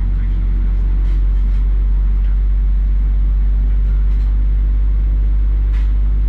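Cabin noise of a taxiing Boeing 777-300ER: a steady low rumble and hum from its GE90-115B turbofan engines at low taxi thrust, heard through the fuselage, with a few faint light ticks.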